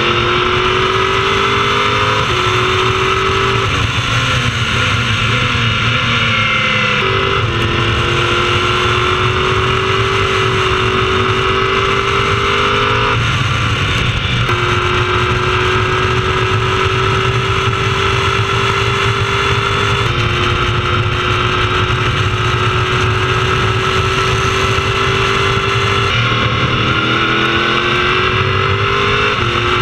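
Onboard sound of a prototype race car's engine at racing speed, its pitch climbing slowly and then jumping at each gear change several times as it shifts up and down through traffic, with wind and road noise under it.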